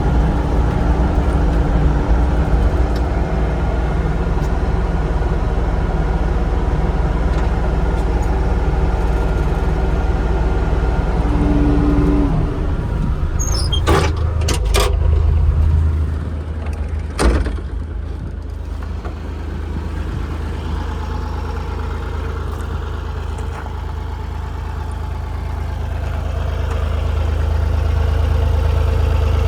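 Bobcat E35 mini excavator's diesel engine running steadily at higher speed, then a few sharp knocks around the middle. It then drops to a lower, steady idle that slowly grows louder near the end.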